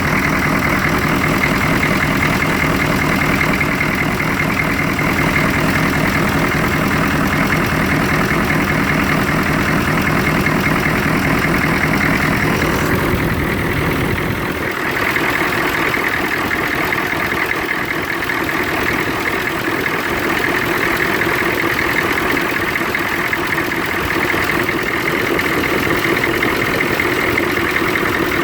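1993 Chevrolet K2500's 6.2-litre V8 diesel idling roughly, with a steady pulsing beat. About halfway through, the deep low rumble drops away and the higher engine noise carries on. The rough, shaking idle is the fault being shown.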